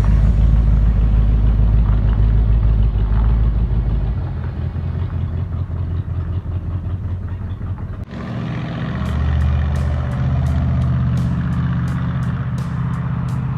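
Ford Galaxie 500's V8 engine idling steadily, just after being fired up. The sound changes abruptly about eight seconds in.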